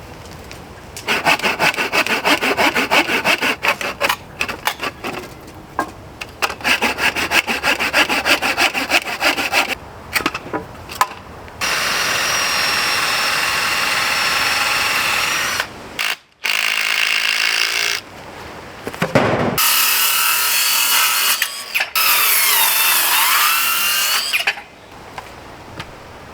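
Power tools working scrap timber: a saw cutting through wood in two bursts with a rapid rasping stroke, then a drill running steadily twice, its pitch wavering under load in the second run.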